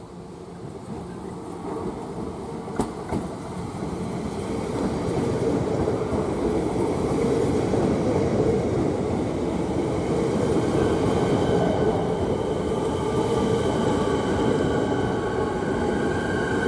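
Electric suburban train running along the platform. Its rumble and wheel noise build over the first few seconds and then hold steady, and a motor whine comes in partway through and climbs slightly in pitch near the end.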